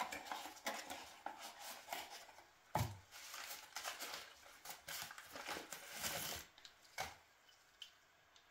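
Handling of a small cardboard box and the brown wrapping paper around a ball screw nut: paper crinkling and rustling as the nut is unwrapped, with a knock about three seconds in and a click near the end.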